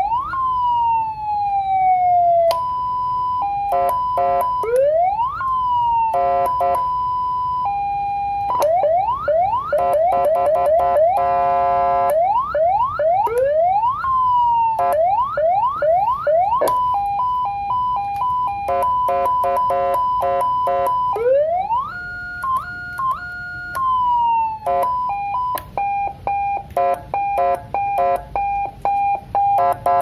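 Old CJB119 100-watt electronic siren amplifier run through its tones one after another: a wail that sweeps up and slowly falls, quick repeated upward yelps, a rapid warble, steady tones, and in the last third a fast two-tone hi-lo alternation. Each pattern lasts only a few seconds before the next button is pressed.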